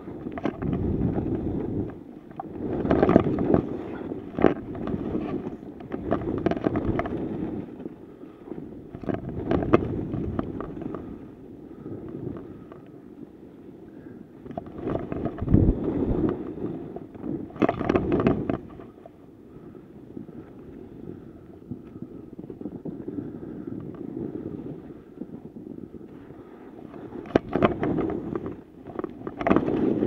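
Skis scraping and hissing through chopped-up, cut-up snow in a run of turns. The noise surges with each turn every few seconds and carries sharp clatters.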